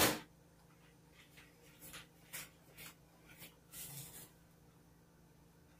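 A loud knock right at the start, then faint, scattered scrapes and rustles of kitchen things being handled and moved about.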